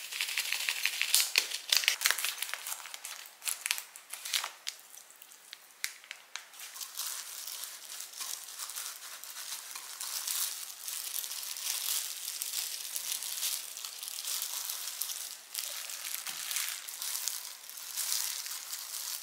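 Plastic packaging crackling in sharp bursts over the first few seconds, then thin disposable plastic gloves crinkling steadily as hands mix rice in a bowl and pack it into fried tofu pockets.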